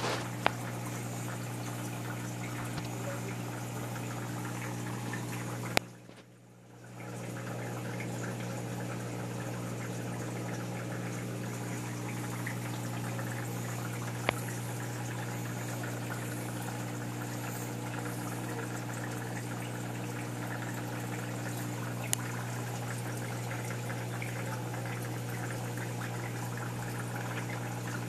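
Steady hum of a reef aquarium's pump over the rush and trickle of circulating water. A sharp click about six seconds in is followed by a brief drop in level, and two faint ticks come later.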